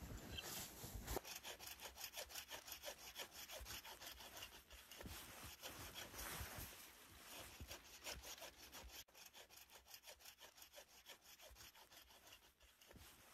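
Faint hand saw cutting wood in quick, even back-and-forth strokes, with a brief break about nine seconds in.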